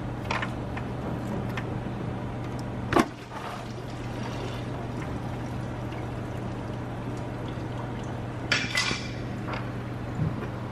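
Engine coolant running and splashing out as the lower radiator hose is worked off the radiator, with a sharp knock about three seconds in and a short clatter near the end.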